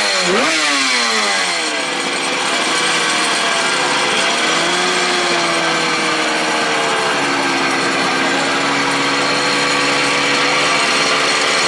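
Yamaha YZR500 two-stroke V4 Grand Prix racing engine, just started, given one sharp throttle blip that rises and falls back, then settling into a steady high idle. The idle wavers slightly in pitch and drops a little about halfway through.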